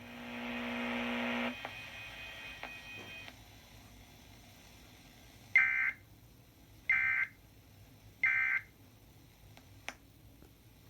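A buzzing tone for about a second and a half, then three short bursts of screechy Emergency Alert System data tones, each about a second apart. These are the end-of-message SAME code bursts that close a severe thunderstorm warning broadcast.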